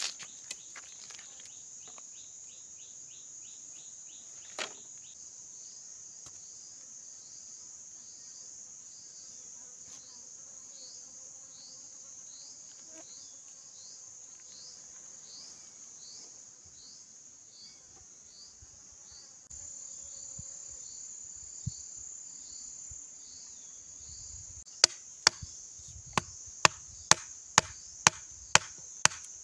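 A steady high drone of insects runs throughout. Near the end, sharp chopping strokes on bamboo start up, about two a second, much louder than the drone.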